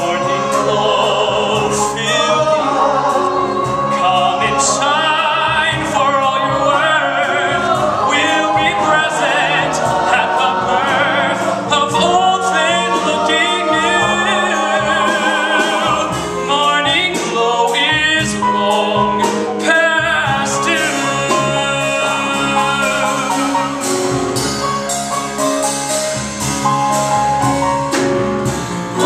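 A male soloist singing a musical-theatre song over live piano, bass and drums, with ensemble voices behind him.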